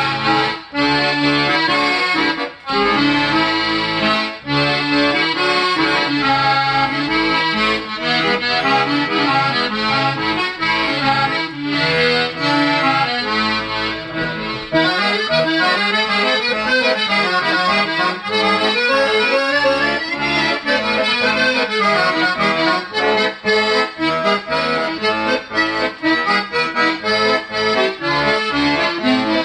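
Restored Hohner 1055 piano accordion being played: a continuous tune with a right-hand melody over repeated left-hand bass notes and chords. It sounds cleanly and at full power, with no knocking or squeaking, after a full repair.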